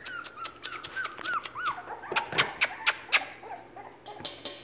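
Three-and-a-half-week-old puppies whining and yipping in short, high squeaks, most of them in the first half. Sharp clicks run underneath and turn into a quick, even ticking near the end.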